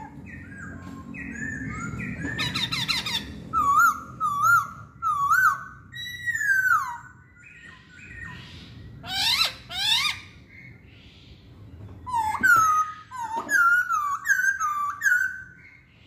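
Masked laughingthrush (poksay Hongkong) singing: a varied string of loud whistled notes and phrases, some sliding up and some down. A few short rising notes are repeated, and there is a quick run of notes in the last few seconds. A low rumble sits under the first few seconds.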